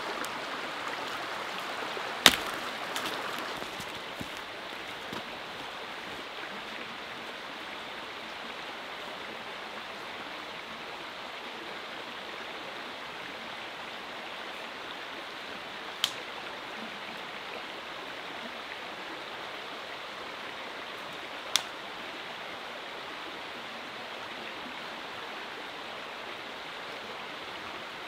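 A small river flowing, a steady rushing throughout. About two seconds in, a dead branch snaps with a sharp crack, followed by a few lighter cracks. Two more single sharp cracks come later, several seconds apart.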